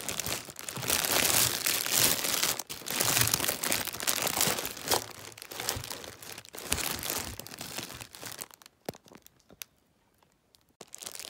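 Packaging crinkling and rustling as it is handled, thinning out to a few soft clicks and a brief near-silence near the end.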